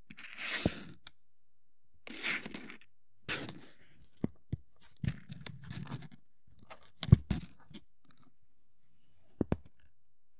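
Plastic miniature parts and hobby tools being worked by hand: a few short scratchy scraping bursts, then scattered sharp clicks and taps of plastic, the loudest about seven seconds in and two quick clicks near the end.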